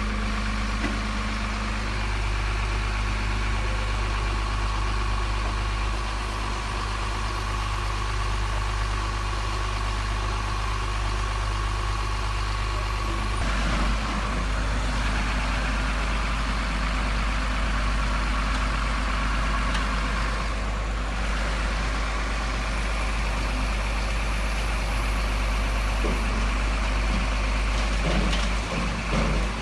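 Diesel truck engine sound from a radio-controlled model truck's sound unit, running steadily at idle. Its note shifts abruptly about halfway through, and a couple of short knocks come near the end.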